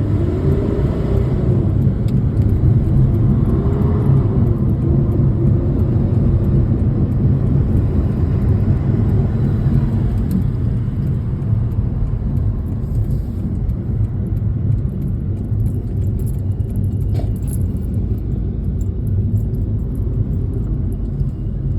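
Steady low rumble of a car heard from inside the cabin, engine running. A faint wavering tone rises and falls over the first few seconds, and there is a single click later on.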